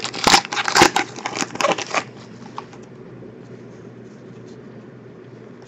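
Foil wrapper of a trading-card pack crinkling and tearing open in a few quick bursts over the first two seconds, then only a faint steady hum.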